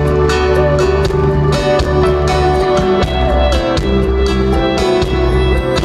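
Live rock band playing an instrumental passage with no singing: guitars carry a melodic line over bass and a steady drum beat.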